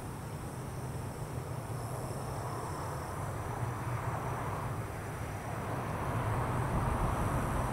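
Three XR class diesel-electric locomotives heading a freight train, running with a steady low engine drone that grows louder as they approach, most so near the end.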